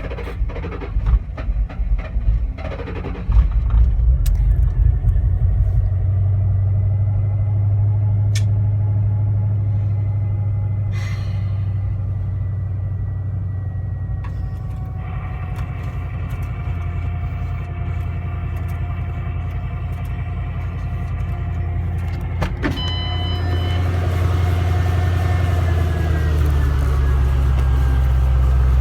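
2007 Ford Mustang Shelby GT-H's V8 stumbling unevenly for about three seconds during a hard start, then catching and running steadily. Its idle note shifts lower and louder near the end.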